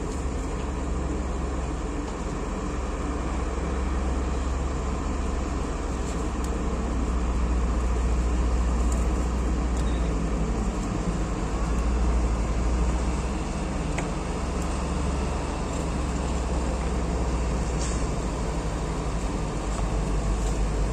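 Heavy trucks' diesel engines running as they drive off the ferry across the port yard, a steady low rumble with no pauses.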